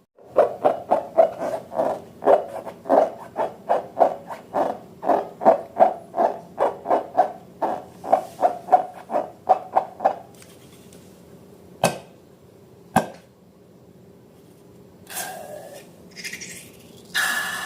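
Slime being squeezed and worked by hand, giving a rapid run of short squishy pops, about three a second. After about ten seconds the pops stop; two sharp clicks follow, then a few short hissy squelches near the end.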